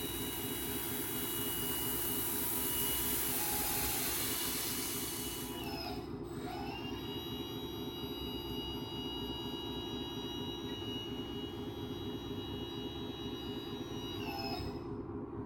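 Scale RC hydraulic dump truck's hydraulic pump running steadily as the tipper bed lifts. For the first five seconds or so the gravel load slides and pours out of the bed with a hiss. The pump's pitch glides down about six seconds in, and again near the end as the empty bed is lowered.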